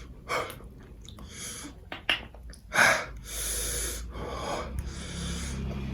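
A series of short breathy, hissing noises, the loudest just under three seconds in, with soft music coming in near the end.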